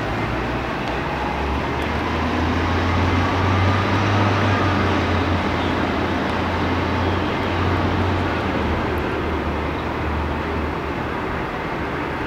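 City street traffic, with a heavy vehicle's low engine rumble that grows louder a couple of seconds in and fades toward the end.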